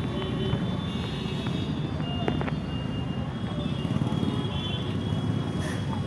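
Steady low rumble of a vehicle engine with traffic noise.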